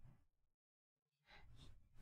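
Near silence, with a few faint soft rustles about one and a half seconds in.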